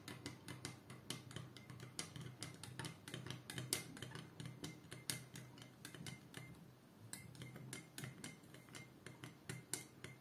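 Teaspoon stirring hot water with honey and black pepper, clinking lightly against the sides of the container several times a second, with a brief pause about six seconds in.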